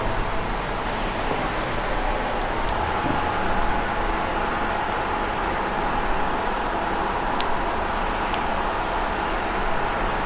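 Steady rushing background noise with a faint steady tone, and a few faint clicks in the second half.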